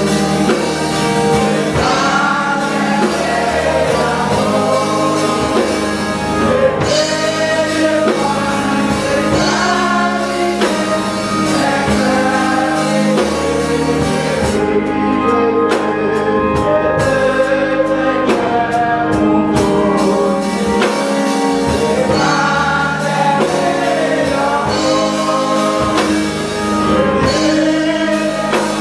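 Church hymn singing: a man leads the hymn into a microphone, joined by many voices, over sustained keyboard chords.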